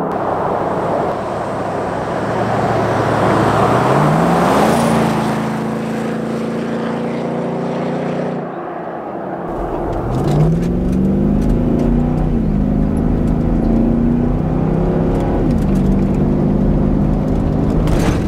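Nissan Y62 Patrol's 5.6-litre V8 through an AVO cat-back exhaust, accelerating hard on a pass, the engine note climbing and then holding. After a short break about nine seconds in, a second run begins, rising again with a dip and climb partway through.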